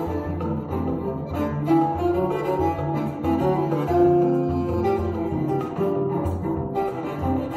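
Live choro: a cello playing a bowed melody in long held notes, with acoustic guitar accompaniment beneath.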